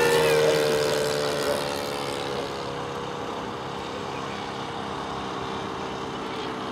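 Engine and propeller of a radio-controlled scale Ju 87D Stuka model droning as it flies past, the pitch sagging slightly and the sound fading over the first two or three seconds into a fainter steady drone as it climbs away.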